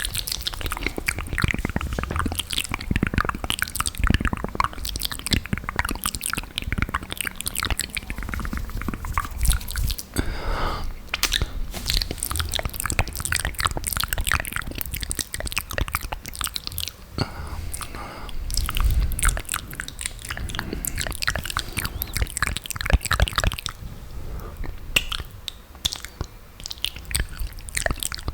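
Close-miked ASMR mouth sounds: wet lip smacks, tongue clicks and saliva pops, irregular and continuous, with a brief low hum near the middle.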